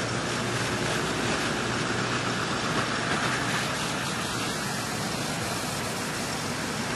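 Steady hiss of distant road traffic, an even noise with no distinct engine or voice in it.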